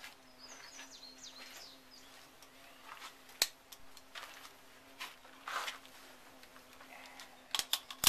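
Sharp metallic clicks from the suppressed 9mm AR carbine being handled: one about three and a half seconds in and a quick run of clicks near the end. Faint bird chirps early on and a low steady hum sit underneath.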